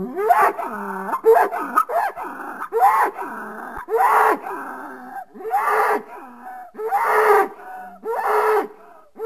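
Invented dinosaur calls for a horned ceratopsian: a string of short, pitched calls that bend up and down. They come closely at first, then about one a second.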